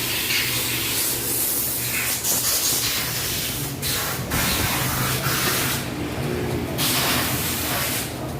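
Air hissing in long spurts broken by short pauses, over a steady low hum.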